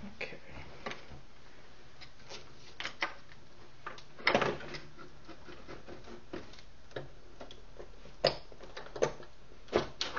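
Scattered clicks and knocks of an Emax 1 keyboard's key assembly being worked loose and lifted out of its chassis, with a louder cluster of knocks about four seconds in and a few sharp clicks near the end.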